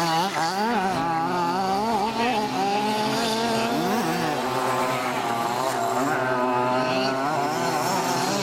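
Several large-scale petrol RC Baja buggies racing at once, their small two-stroke engines buzzing and revving up and down, each rising and falling in pitch on its own.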